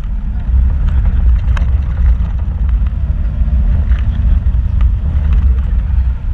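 Off-road vehicle's engine and drivetrain running with a steady low rumble as it crawls over a rocky dirt trail, heard from inside the cab, with a few light knocks as it rolls over the rocks.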